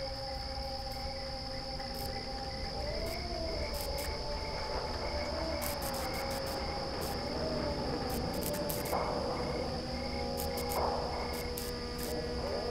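Steady, high-pitched chirring of night crickets, with slow sustained tones gliding up and down in pitch beneath it and scattered faint ticks.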